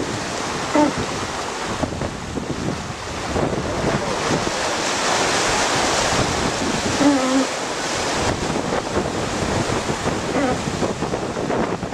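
Rushing, churning wake water from a Swan 45 racing yacht's hull planing at high speed, with wind buffeting the microphone. The sound is a steady roar of foam and spray.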